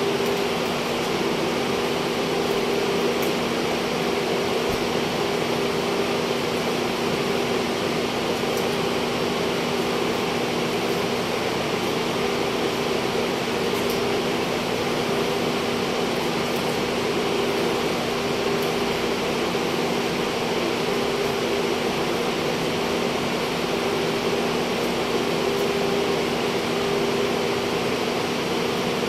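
Refrigeration evaporator fans of a chilled cutting room running steadily: an even whirring hiss with a low, steady hum.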